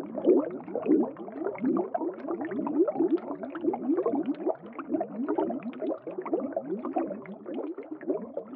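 Water bubbling and gurgling: a dense, continuous run of short rising bubble sounds.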